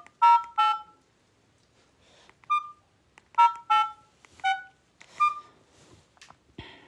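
Mobile phone keypad tones as numbers are pressed: about seven short two-note beeps at uneven intervals.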